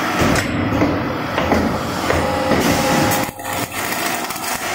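Double J hook making and welding machine running a cycle: its clamps and forming tools clunk and knock several times, a steady hum sounds for about a second in the middle, and then comes the weld, throwing sparks near the end.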